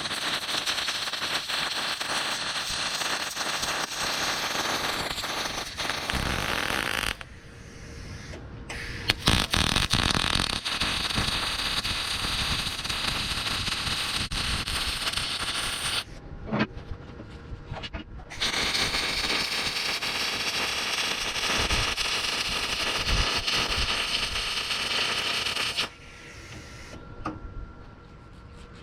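Arc welder laying beads on steel grab hooks and a tractor bucket: a steady crackling hiss from the arc in three runs of about seven seconds each, broken by short pauses of about two seconds between beads.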